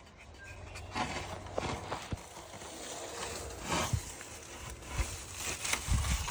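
Dry leaves and moss from a bird's nest rustling and crackling as they are pulled by hand out of a truck, with an irregular run of short crackles and a few light knocks.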